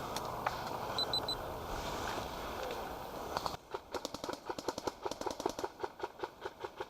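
Airsoft rifle being reloaded: a few seconds of rustling gear, then a run of quick, light clicks, about six a second.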